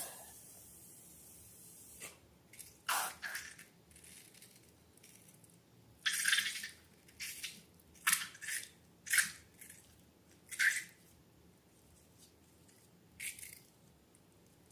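Slime being squished and handled: a string of short wet, sticky squelches at irregular intervals, the most bunched near the middle.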